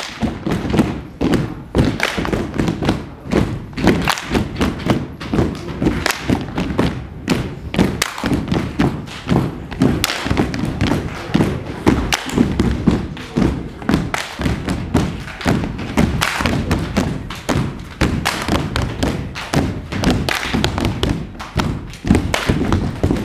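Loud, dense heavy thumping, several beats a second and continuing without a break, with music underneath.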